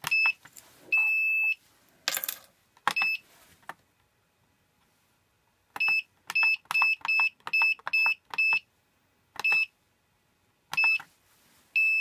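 Standalone access-control keypad beeping as its buttons are pressed during programming: short high beeps, one per keypress, each with a button click, including a quick run of several in the middle. A longer held beep sounds about a second in and another at the end, with a brief rustle near two seconds.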